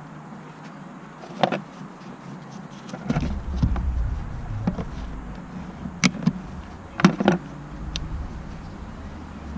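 Several sharp knocks and clicks, spaced irregularly about a second or so apart, over a steady low hum. A low rumble comes in about three seconds in and fades near the end.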